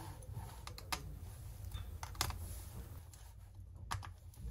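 Small scattered clicks and taps from a screwdriver working the tiny screws that hold the cooling fan of a Dell Latitude 7400 laptop, over a low steady hum.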